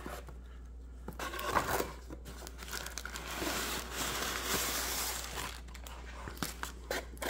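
Clear plastic wrap crinkling and cardboard rustling as a wrapped package is worked out of a cardboard shipping box, starting about a second in with short crackles and tearing sounds, then easing off near the end.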